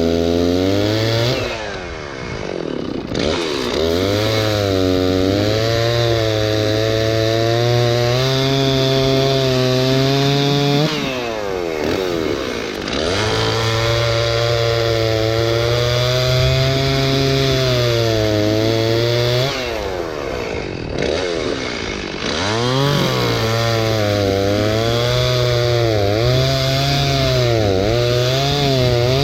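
Stihl chainsaw running at full throttle, cutting through a log. It drops in revs and climbs back three times between cuts.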